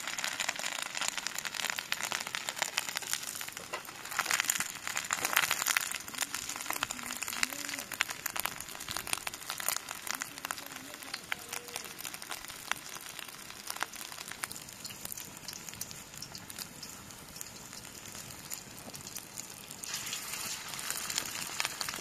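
Lamb burger patties sizzling and crackling in hot oil in a pan over embers. The crackle is loudest a few seconds in, eases off past the middle, and grows again near the end, when a second patty is in the pan.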